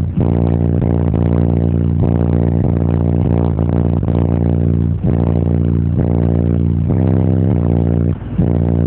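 Loud bass-heavy music played through a car audio subwoofer system, with deep bass notes dominating throughout.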